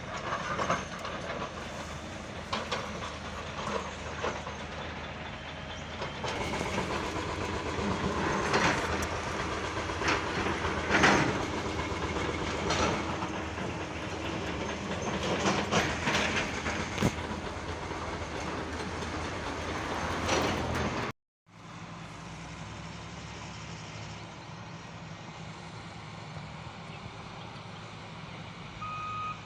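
Heavy construction machinery at work: engines running steadily with repeated metal clanks and knocks. After a sudden break about two-thirds of the way through, a steadier engine hum, and a vehicle's reversing beeps start near the end.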